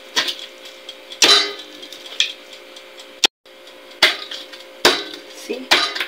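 Knife cutting through the crackling-crisp skin of a roasted pork belly on a wooden board: a series of sharp crunches and knocks of the blade, about seven in all, the loudest about a second in.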